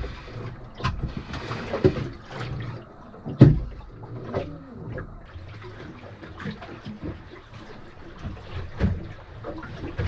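Water slapping and lapping against the hull of a small junk-rigged Paradox sailboat under way, with irregular splashes and thumps; the loudest comes about three and a half seconds in.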